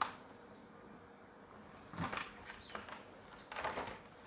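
A sharp click, then faint, scattered rustling and handling noises as a package holding a laptop drive caddy is opened.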